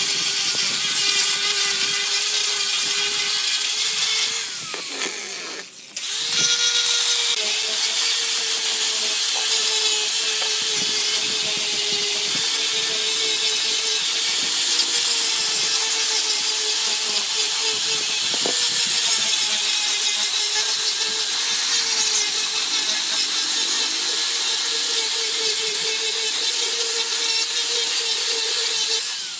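Angle grinder fitted with a sanding disc, running steadily as it sands rough wooden boards, its motor whine over the hiss of the disc on the wood. About four seconds in it is switched off and winds down, then starts up again about six seconds in and runs on.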